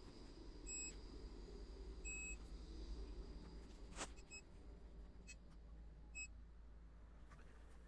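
Multimeter continuity beeper giving a few short, separate high beeps instead of a steady tone, while testing a worn carbon brush of a blower fan motor that no longer makes good contact. A single click about four seconds in.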